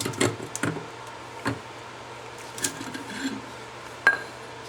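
Scattered metallic clicks and knocks of hand tools working on a car's front disc brake caliper, a few seconds apart. The loudest is a short ringing metal clink near the end.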